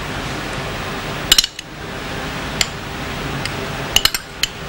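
A metal spoon clinking against glass dessert bowls as mango balls are spooned in. There is a quick double clink about a second in, then scattered single clinks and another pair near the end, over a steady low room hiss.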